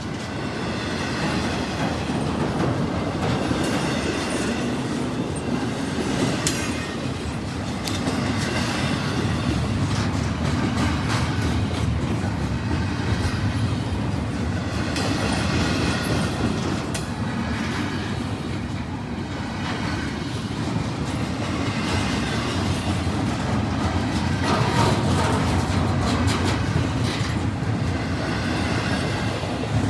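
Freight train cars rolling past, their wheels clicking over the rail joints in a steady rumble.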